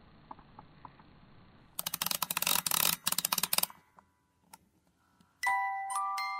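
Faint hiss, then a dense run of rapid clicking for about two seconds, then near silence with a few single clicks. About a second before the end, a creepy music-box-like chime melody begins, with several sustained bell-like notes at different pitches.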